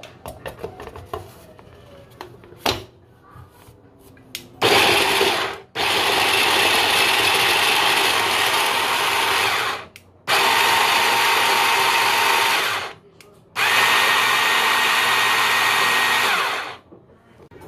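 Immersion blender with a mini chopper attachment chopping peeled garlic cloves, run in four pulses of one to four seconds with short pauses between them, so the garlic stays in small pieces rather than a paste. Before the first pulse come a few light clicks and a knock as the motor unit is fitted onto the bowl.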